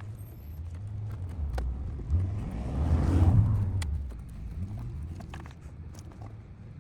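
A vehicle passing by, its noise swelling to a peak about three seconds in and then fading, over a steady low rumble, with a few faint clicks.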